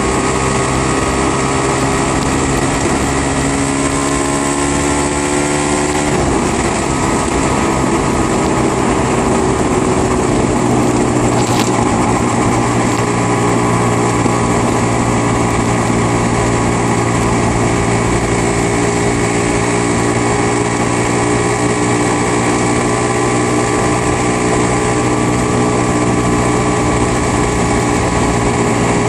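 Aprilia RS125's two-stroke single-cylinder engine running under way, heard from the rider's seat. Its note falls over the first six seconds, then holds steady at a cruising pace.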